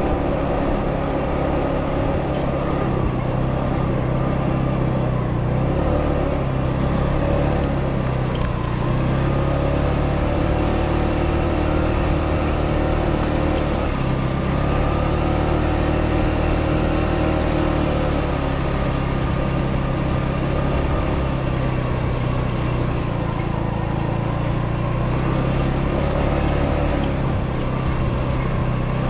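Italika D125 scooter's 125cc engine running while riding, its pitch rising and falling slowly several times as the throttle opens and eases off, over a steady low rush of wind and road noise.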